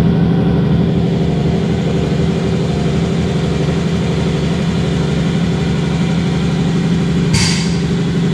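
Steady, loud hum of a running machine filling the workshop, with two short hisses about a second apart near the end.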